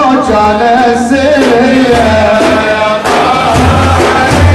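Men singing an Iraqi Sufi madih, a devotional praise song for the Prophet, in long drawn-out sung lines over a drum beat.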